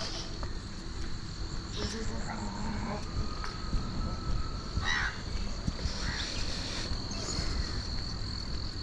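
Morning outdoor ambience: a steady high-pitched insect drone, with a few short bird calls breaking in now and then.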